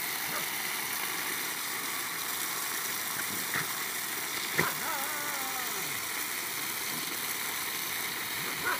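Steady hiss of water jetting from a leak in a black water pipe. About four and a half seconds in, a puppy gives a short falling whine.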